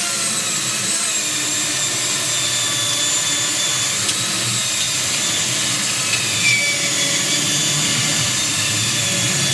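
Corded electric chainsaw running steadily at full speed while cutting through a log, a high whine over the noise of the chain chewing wood.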